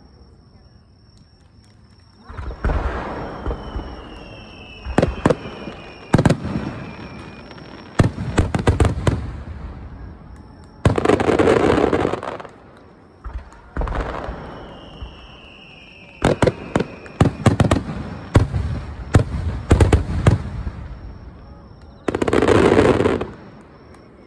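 Fireworks display: aerial shells bursting overhead in irregular clusters of sharp bangs, with two longer rushing bursts of about a second, one midway and one near the end.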